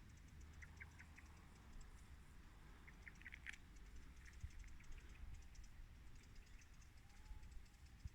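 Faint outdoor ambience: scattered short, high chirps and ticks, with a brief cluster about halfway through, over a low rumble.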